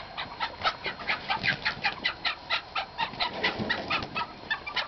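Young chickens cheeping over and over, a quick run of short high calls, several a second, as they are chased.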